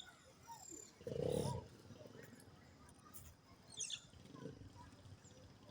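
A short, loud animal call about a second in, with fainter high chirps a few seconds later.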